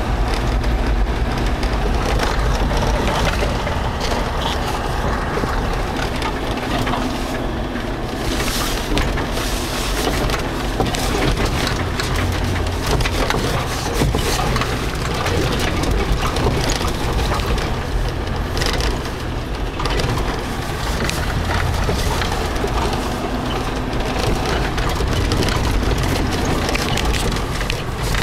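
Storm surf breaking on a rocky breakwater, with strong wind buffeting the microphone in a continuous low rumble; the noise swells now and then as bigger waves break.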